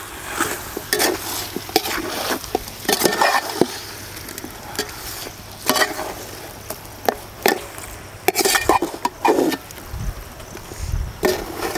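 Chicken pieces sizzling in hot ghee and oil in a metal pot while a perforated metal ladle stirs them, scraping and clinking irregularly against the pot.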